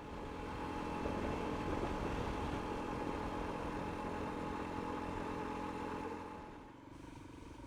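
Motorcycle engine running steadily while under way, with wind and road noise; it quietens a little near the end.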